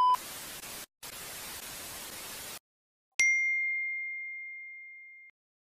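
Outro sound effects: a test-card beep cuts off, TV static hisses for about two and a half seconds with a brief break, then after a short silence a single bright ding rings out and fades over about two seconds.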